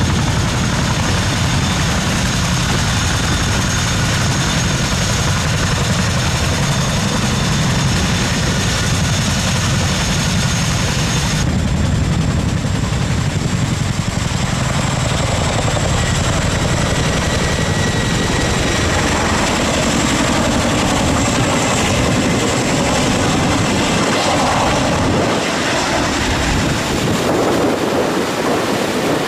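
Boeing Chinook tandem-rotor helicopter running loud at close range, a steady rotor rumble under a high turbine whine, as it lifts off and climbs away overhead. The sound changes suddenly about eleven seconds in.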